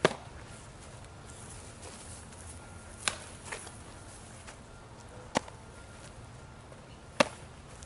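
A baseball smacking into a leather glove during a game of catch: a few sharp knocks a couple of seconds apart, the loudest at the start and near the end.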